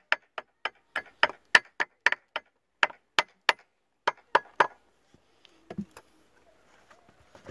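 The back of a rusty hatchet head knocking on the metal of a V4 Johnson outboard's powerhead: about fifteen sharp raps in quick succession, roughly three a second, with a couple of short pauses. The rapping stops about two-thirds of the way through.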